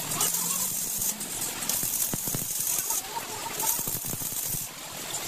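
Metalworking sounds: short bursts of high hiss switching on and off, with scattered clinks and knocks of metal parts.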